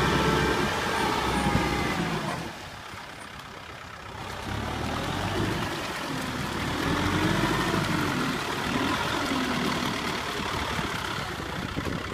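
Kubota tractor's diesel engine working under load while the tractor is bogged down in deep mud. The engine eases off about two seconds in, then picks up again, its pitch rising and falling as it revs.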